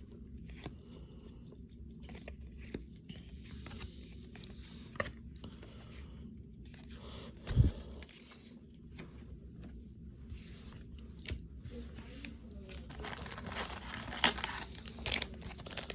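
Baseball card pack wrapper being torn and crinkled, with small clicks of cards being handled. A single low thump comes about halfway through, and the crinkling grows busier over the last few seconds.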